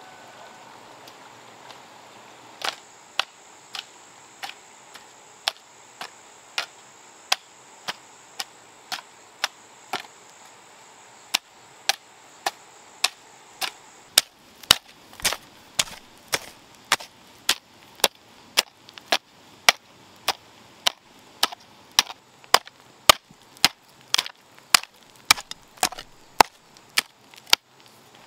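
A metal hoe chopping into loose earth in steady strokes, about two a second. The strokes start faint and grow louder and heavier about halfway through.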